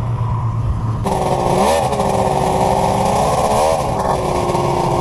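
Snowmobile engine running: a low idling rumble, then from about a second in a steady, high-pitched running note that dips in pitch briefly twice.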